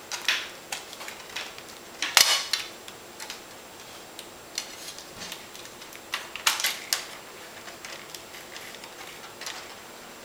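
Plastic casing panels of a Sony Vaio laptop clicking and clattering as they are lifted, pried and handled, in several short bursts, the loudest about two seconds in.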